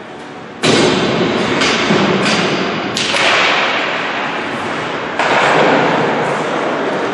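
A series of five sharp knocks, the first about half a second in and the last about five seconds in, each ringing out in the long echo of an indoor ice rink.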